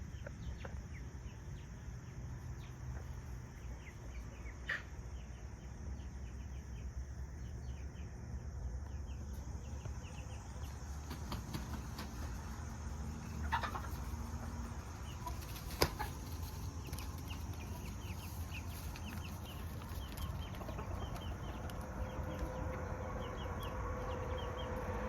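Chickens clucking softly over a steady low rumble, with a few sharp clicks scattered through.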